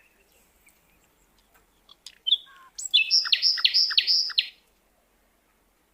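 A small bird chirping: a couple of short high calls about two seconds in, then a quick run of about five sharp chirps lasting a second and a half.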